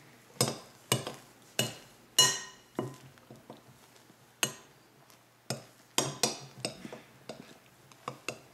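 Metal spoon knocking against the side of a glass mixing bowl while stirring soft melted marshmallows: about a dozen irregular clinks, some ringing briefly, the loudest about two seconds in.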